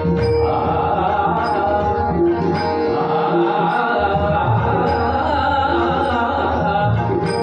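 Marathi natyageet: a man singing with harmonium and tabla accompaniment, the harmonium holding sustained notes under the voice and the tabla keeping a steady beat.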